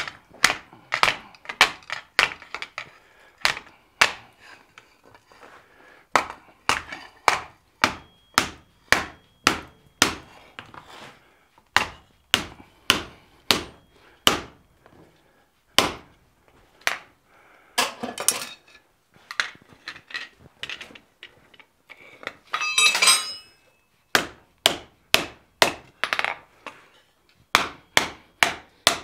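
Hand hammer striking hot, fold-formed sheet steel on an anvil: sharp blows about two a second, with a short pause early on and a brief metallic clatter a little over two-thirds of the way through.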